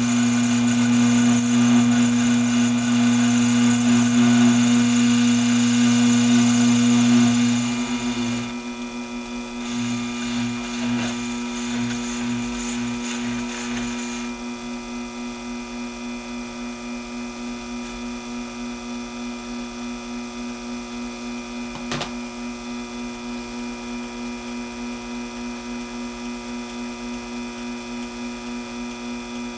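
Taig mini lathe running with its drive belt very loose while the tool takes a cut in 304 stainless steel, peeling off stringy chips. About eight seconds in the cutting noise drops away and the lathe runs on more quietly with a faint regular pulsing, and there is a single sharp click about two-thirds of the way through.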